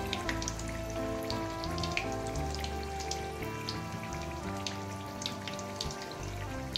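Roti deep-frying in hot oil, with many small crackles and pops from the bubbling oil throughout. Background music with held notes runs underneath.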